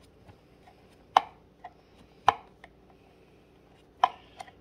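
Sharp knocks of gaming-chair parts striking each other as an oval-shaped piece is worked into a rectangular cutout: three loud knocks about a second apart, each followed by a fainter click.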